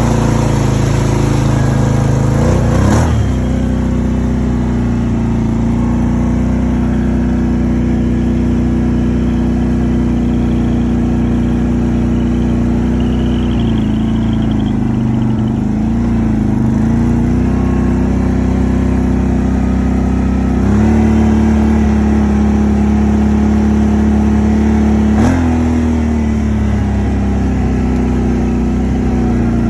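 Can-Am Outlander 800 XMR ATV's V-twin engine running under load through mud and water, its note stepping up and down with the throttle, over the hiss of mud and water spraying against the machine. Two sharp knocks, one about three seconds in and one near the end.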